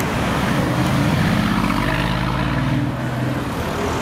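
Mercedes-Benz G-Class 4x4²'s V8 engine running as the truck drives slowly past, a steady low drone that is loudest as it goes by and drops away about three seconds in as it pulls off down the road.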